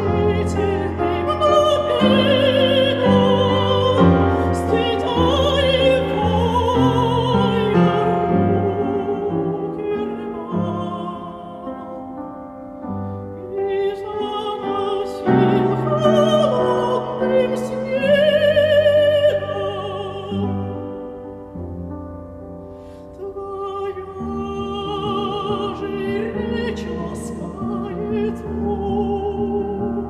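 A dramatic operatic soprano sings a Russian art song with wide vibrato, accompanied by piano. The voice softens in two places and then swells again.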